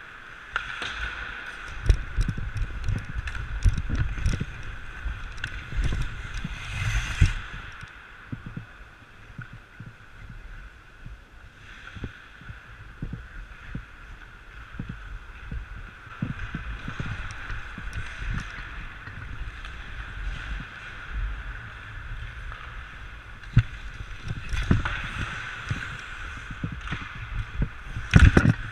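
Hockey skates striding and scraping on rink ice, heard through a body-worn action camera as muffled low thumps with each push. There are sharper scrapes about seven seconds in and just before the end, over a steady hum.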